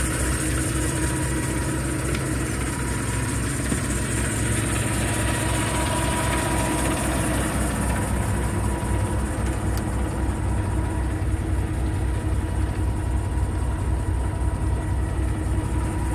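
2019 Peterbilt 389's 430 hp Paccar MX-13 inline-six diesel idling steadily with an even low rumble. From about ten seconds in it sounds duller, heard from inside the cab.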